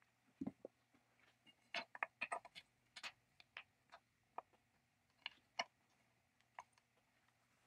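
Irregular small clicks and taps of metal parts being handled as an electric chainsaw's trigger switch and wiring are fitted into its metal handle, with a soft knock about half a second in. The clicks come thickest in the first half and thin out towards the end.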